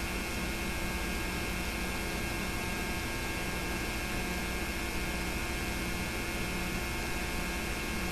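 Steady electrical hum with hiss, many fixed tones held unchanged: the background noise of the home-made narration recording, with no other sound.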